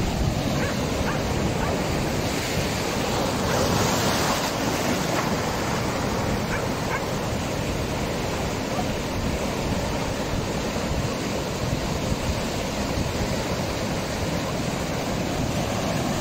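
Rough sea surf breaking and washing over a rock shelf, a steady rushing wash with a heavier surge about four seconds in.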